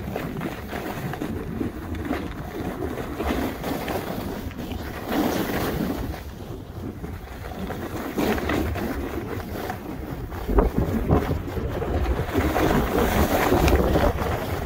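Wind rushing over the microphone during a downhill snowboard run, mixed with the scrape of board edges carving on packed snow; the rush swells and eases, growing louder in the second half.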